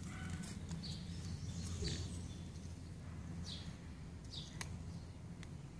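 A small bird chirping repeatedly: short, high, falling chirps about a second apart, over a steady low rumble, with two sharp clicks.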